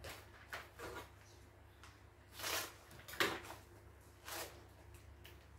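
White plastic courier mailer bag being handled and torn open by hand: a handful of short crinkling rustles and rips, the sharpest about three seconds in.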